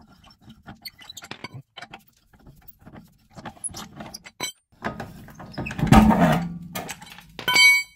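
Steel lug wrench clicking and rattling against the wheel's lug nuts as they are spun loose by hand. A louder thump comes about six seconds in, and a brief high ringing tone near the end.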